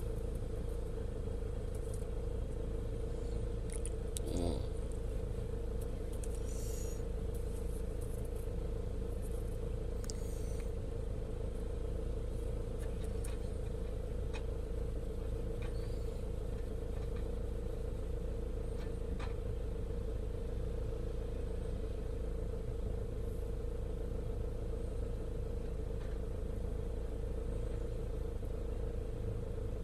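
Vehicle engine idling, heard from inside the cab: a steady low rumble with a constant hum. A short rising squeak about four seconds in.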